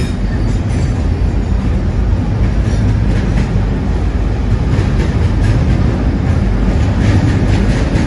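Freight train of loaded steel-coil flat wagons rolling past: a steady low rumble of wheels on rail, with scattered clicks as the wheels cross rail joints.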